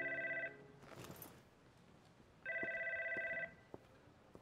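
Desk telephone ringing for an incoming call, in electronic warbling rings about a second long and about three seconds apart. One ring ends about half a second in and another runs from about 2.5 to 3.5 seconds. A few faint footsteps fall between the rings.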